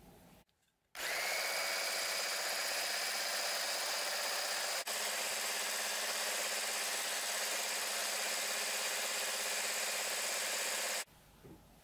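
Electric hand blender fitted with a whisk attachment running steadily as it whips heavy cream in a plastic beaker. The motor starts about a second in and cuts off sharply near the end.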